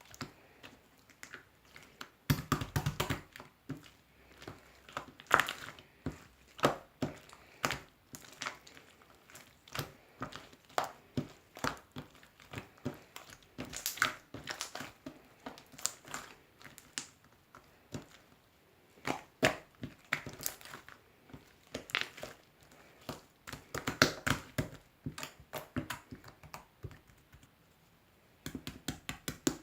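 Slime being squeezed, poked and folded by hand, giving an irregular run of sharp crackling clicks and pops.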